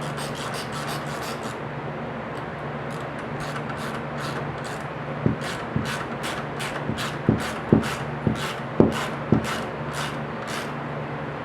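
Socket wrench working the 19mm rear axle nuts of a Razor MX dirt bike: a run of light metal clicks, with several sharper knocks between about five and nine and a half seconds in.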